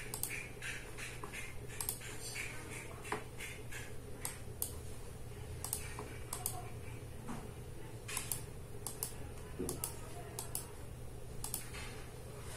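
Computer mouse clicking irregularly, short sharp clicks, over a steady low hum.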